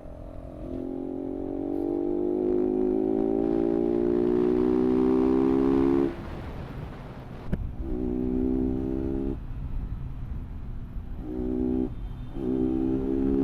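Motorcycle engine accelerating, its pitch climbing slowly for about five seconds before the throttle is suddenly closed. It then picks up again in shorter pulls, with a sharp click between them.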